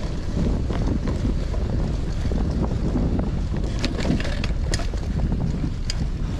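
Wind rushing over the microphone of a Cannondale CAADX cyclocross bike being ridden on a dirt trail, with a steady rumble of tyres rolling over the ground. A few sharp clicks and rattles from the bike come about four to six seconds in.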